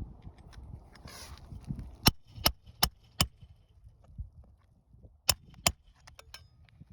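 Hammer striking roofing nails into asphalt shingles: four sharp blows in quick succession, then two more a couple of seconds later, with scuffing on the roof between them.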